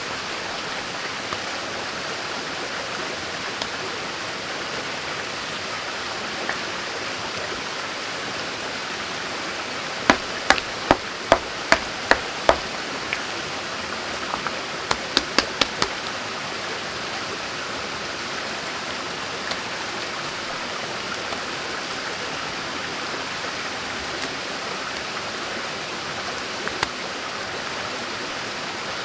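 Shallow stream running steadily over stones. About ten seconds in, seven sharp knocks come at a little over two a second, followed a couple of seconds later by a quicker cluster of about six clicks.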